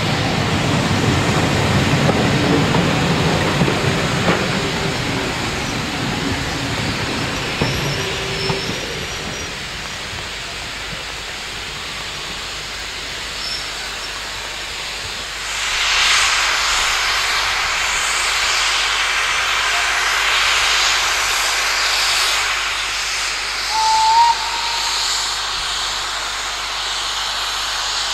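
Steam train on a heritage line: a low running rumble that dies away over the first nine seconds or so, then from about halfway a steady hiss of steam that swells and carries on. There is one short high note near the end.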